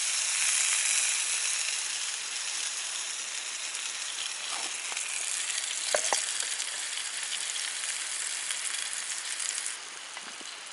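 Smoked sausages sizzling over the heat, a steady hiss of juices spitting that slowly thins and drops off abruptly near the end. There is a light knock about halfway through.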